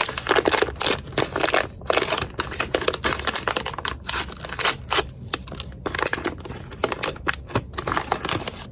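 Blind-box packaging being handled and opened: quick irregular crinkling, rustling and short sharp clicks as the figure is unwrapped.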